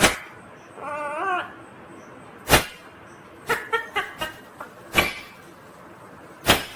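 Indian ringneck parrot calling: a series of short, sharp squawks, with a wavering pitched call about a second in and a quick cluster of short chirps near the middle.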